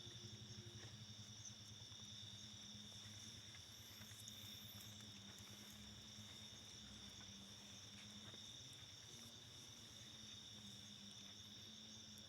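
Faint, steady chorus of crickets chirping, under a low steady hum.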